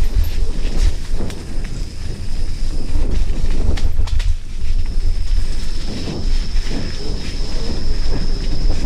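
Mountain bike clattering and rattling over a rough, wet forest trail, with wind rumbling on the camera microphone. A steady high insect drone runs behind it, dropping out briefly near the middle.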